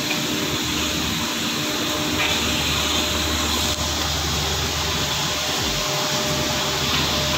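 Steady industrial noise of a chemical plant's process equipment and ventilation: an even hiss with a faint low hum underneath.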